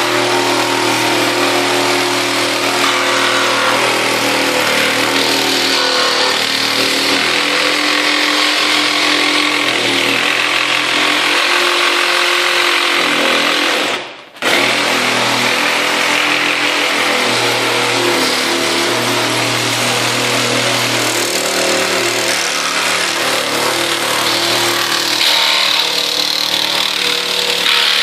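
Ridgid Gen5x cordless reciprocating saw, with its permanent-magnet motor running at speed, cutting a 2x4 with nails embedded in it using a Diablo blade. It runs steadily, stops for a split second about halfway through, then starts again.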